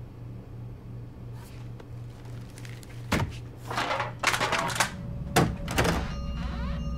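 Several heavy thuds with rattling crashes between them, starting about three seconds in, over a low steady hum.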